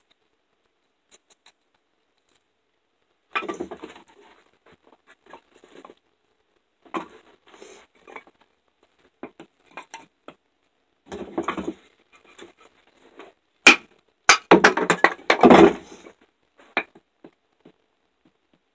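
MTech fixed-blade knife shaving curls down a wooden strip to make a feather stick: irregular scraping strokes in short bursts, with the loudest run of strokes about three-quarters of the way through. Two sharp clicks come just before that run.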